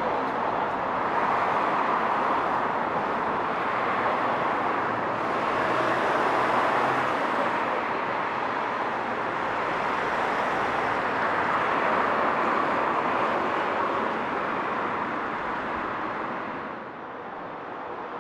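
Road traffic noise on a city street, a steady rush of passing vehicles that swells and eases, then drops off near the end.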